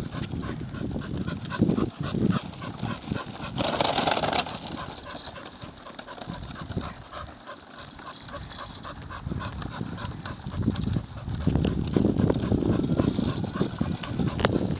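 Small child's wagon rolling on asphalt as a Chow Chow pulls it on a leash, its wheels rumbling, with many quick ticks from the dog's paws and the walker's steps on the pavement. A brief rush of noise comes about four seconds in.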